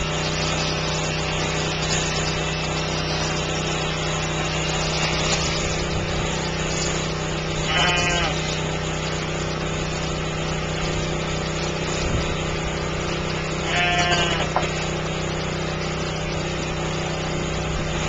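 Sheep bleating twice, a short call about eight seconds in and another about fourteen seconds in, over the steady hum of electric sheep-shearing handpieces.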